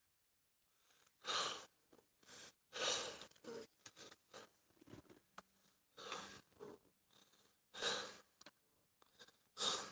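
A man breathing out in short, irregular puffs of air, several seconds apart, close to the microphone.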